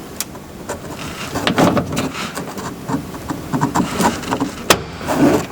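Plastic rod clip and metal linkage rod inside a Dodge Durango front door clicking, ticking and rattling as the clip is pushed back off the door handle rod. The clicks come irregularly, with one sharp click near the end.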